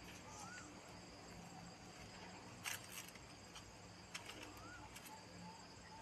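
Faint outdoor ambience: a steady high insect drone with a few short chirps that rise and fall, and a sharp crackle about halfway through.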